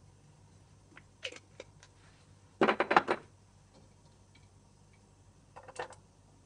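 Short clicks and clatter of kitchenware: a loud rapid cluster of knocks about midway, then a few light clicks near the end as sliced garlic is dropped into a cold nonstick frying pan with olive oil. There is no sizzle yet.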